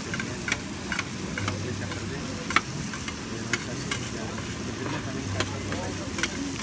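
Chorizo and sausages frying in fat on a taco stand's tray: a steady sizzle with scattered sharp crackles.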